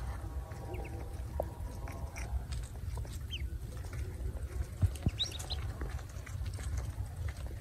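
Ducklings peeping now and then: a few short, high chirps, with several together about five seconds in, over a steady low rumble and faint rustling.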